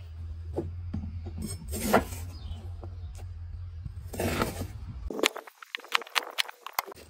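Chef's knife cutting an onion on a plastic cutting board: a few crunching slices through the onion, then from about five seconds in a quick run of about eight sharp knife taps on the board. A low steady rumble underlies the first five seconds and stops suddenly.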